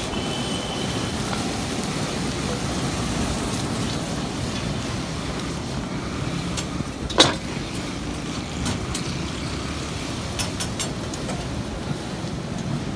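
Steady low rumble of background noise, with one sharp knock about seven seconds in and a few lighter clicks a few seconds later.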